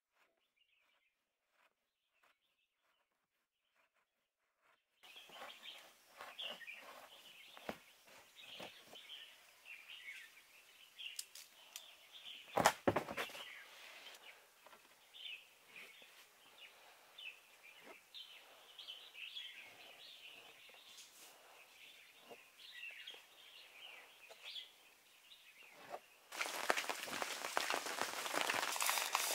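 Birds chirping outdoors over faint scraping and handling sounds, with one louder sharp scrape about halfway through. Near the end a steady hiss sets in.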